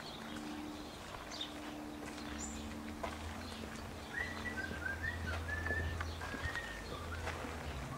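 Small birds chirping: a run of short, clear notes starts about halfway through, with a few higher chirps before it, over a low outdoor rumble.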